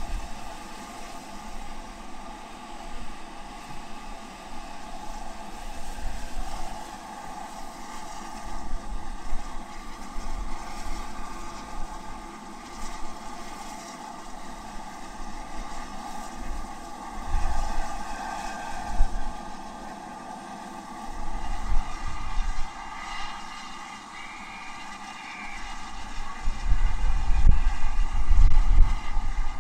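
LMS Black 5 steam locomotive giving a steady hiss and running sound, with gusts of wind buffeting the microphone, heaviest near the end.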